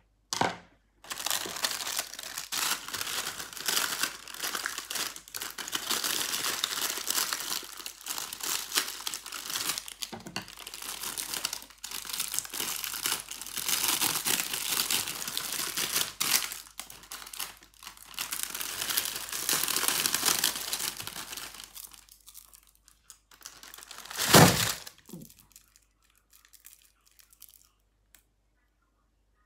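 Clear plastic shrink-wrap crinkling and tearing as packs of boxed milk cartons are pulled out of it, rustling almost without a break for about twenty seconds. A single loud knock comes near the end, followed by a few faint small ticks.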